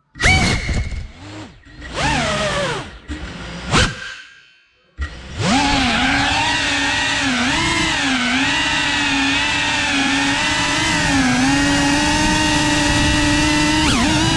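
Cinewhoop FPV drone's brushless motors and ducted propellers whining. For the first few seconds they come in short throttle bursts with near-silent gaps. About five seconds in they settle into a steady buzzing hum that wavers up and down in pitch as the throttle changes.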